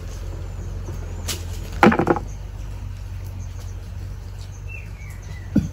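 Hands working through a heap of cashew apples, twisting the nuts off, with scattered clicks and a low thud near the end as nuts are dropped into buckets. A brief louder burst comes about two seconds in, over a steady low rumble.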